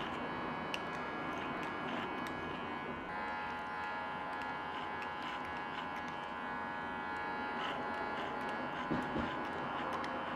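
Electric hair clippers buzzing steadily while cutting hair, with small clicks here and there.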